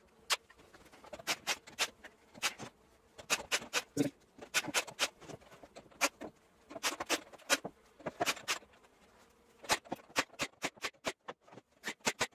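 Wooden boards clattering and knocking as they are handled and set down: a run of sharp knocks and clicks in irregular clusters.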